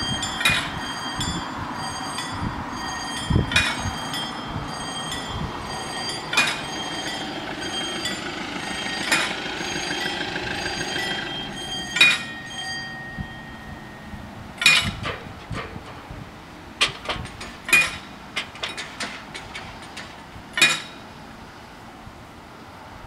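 Level crossing warning bells ringing as the barriers come down, with a sharp strike about every three seconds. The ringing stops a little past halfway, and a string of sharp clicks follows.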